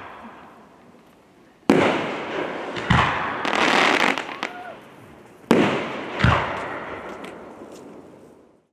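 Aerial fireworks going off: four sudden bangs in two pairs, each trailing off, with a stretch of crackling after the second bang. The sound cuts off abruptly near the end.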